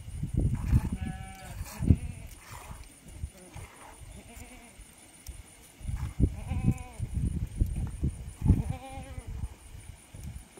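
Goats bleating: three quavering bleats, about a second in, midway and near the end, over low knocks and rustling.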